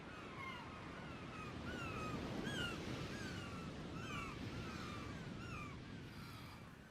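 Many short, overlapping chirping animal calls at varying pitches over a steady background hiss.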